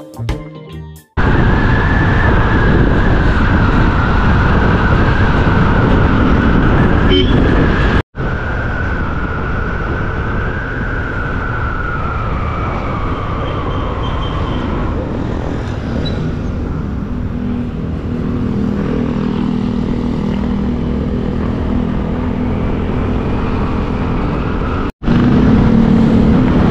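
Riding a motorcycle along a road: steady engine noise mixed with wind rush on the microphone, with a wavering high tone through the first half and a low engine hum later on. Guitar music cuts off about a second in, and the sound breaks off briefly twice.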